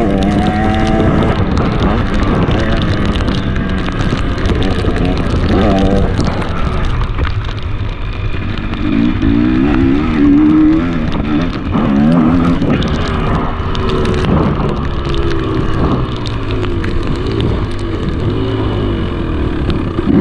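KTM 300 XC two-stroke dirt bike engine under way, revving up and falling back again and again as the throttle is worked through the corners and straights, with a steady low rumble of wind on the camera microphone.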